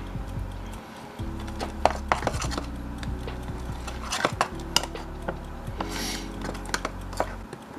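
A utensil stirring a thick whipped cream and marshmallow mixture in a mixing bowl, clinking and scraping against the bowl again and again.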